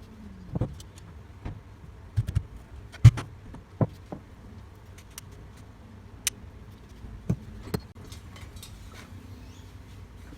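Metal parts of a cylinder lawn mower being handled and set down during disassembly: a scattered series of knocks and clinks, the loudest about three seconds in.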